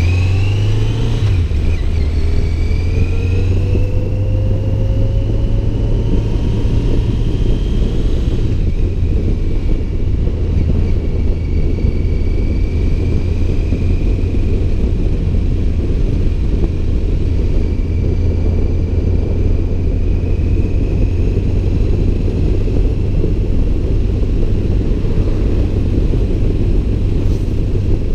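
Motorcycle engine pulling away and accelerating through the gears, a rising whine that drops back at a shift about a second in and climbs again until about eight seconds in, then holding steady at cruising speed. Heavy wind rumble on the microphone sits under it throughout.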